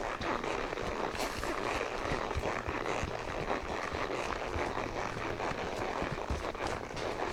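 Horses walking on a path covered in dry fallen leaves: hooves scuffing and rustling through the leaves, a continuous rustle with many soft, irregular knocks.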